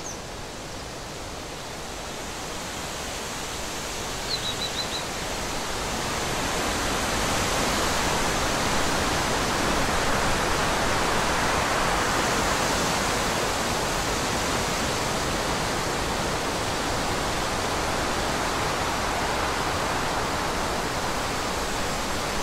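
Steady rushing outdoor ambience that swells over the first several seconds and then holds steady. A bird chirps briefly twice in the first few seconds.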